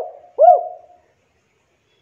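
Spotted dove cooing: the last two notes of its call phrase, each a rounded note that rises and falls in pitch, ending about a second in.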